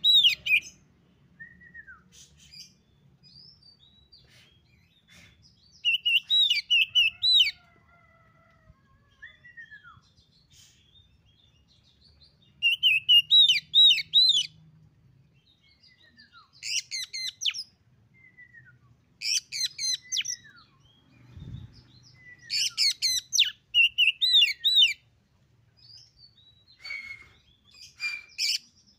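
Oriental magpie-robin singing: about seven bursts of rapid, varied chirps and whistles, each a second or two long, separated by pauses of a few seconds that hold softer, lower whistled notes.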